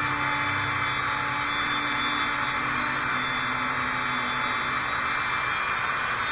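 Handheld rotary tool running steadily, its bit grinding a hole through a resin model part: a constant motor whine under the hiss of the cutting.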